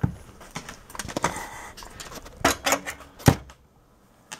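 Handling noise: irregular clicks and knocks as multimeter test probes and the hand-held camera are moved about over the open amplifier chassis, the sharpest knock about three seconds in.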